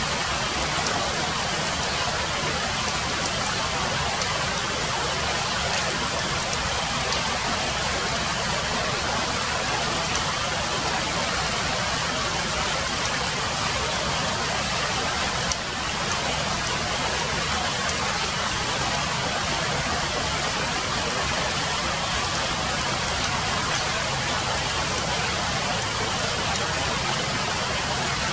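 Steady rushing noise of water, like rain falling on foliage, with a brief small drop in loudness about fifteen seconds in.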